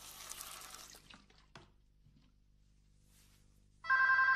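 Liquid poured from a plastic bottle into a plastic basin, the splashing stream stopping about a second in, followed by a few light clicks as the bottle is handled. Near the end a telephone starts ringing loudly with a steady two-tone electronic ring.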